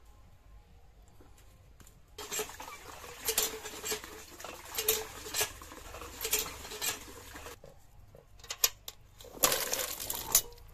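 Water from a hand pump gushing and splashing into a metal bucket, surging with each stroke of the pump handle for about five seconds. Near the end comes a short loud clatter as chopped vegetables are tipped off a metal plate into a pot.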